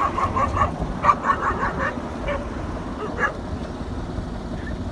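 Quick runs of short yapping animal calls, about five a second, in the first two seconds, then one more call about three seconds in, over a steady low rumble.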